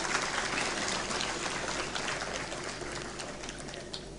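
Audience applauding, with the clapping slowly dying away.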